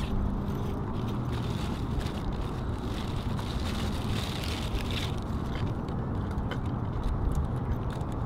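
Rustling of a fabric backpack and papers being handled, loudest about four seconds in, over a steady low outdoor rumble.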